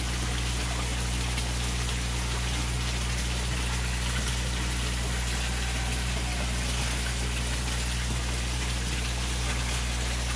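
Koi pond pump running with a steady low hum, over a constant rush of moving, splashing water in the pond.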